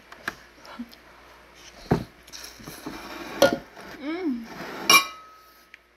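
A metal spoon clinks against a ceramic bowl four times, the last and loudest near the end leaving a short ringing tone. In between come slurps as glass noodles are sucked up, and a brief hum.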